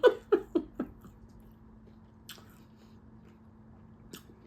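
Close-miked chewing and mouth sounds of someone eating a chicken nugget: a quick run of short smacks in the first second, then quiet chewing with a couple of faint clicks.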